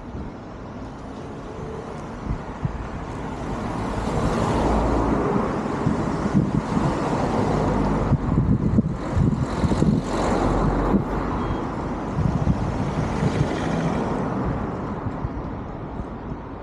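A car passing along the street: road and engine noise builds over a few seconds, holds for several seconds, and fades near the end.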